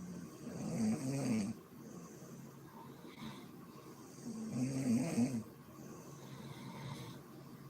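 A woman snoring in deep sleep: two loud, rough, pitched snores about four seconds apart, each lasting about a second, with quieter breathing between them.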